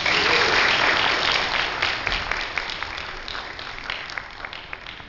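Congregation applauding a choir. The clapping is loudest at first, then thins to scattered single claps that die away near the end.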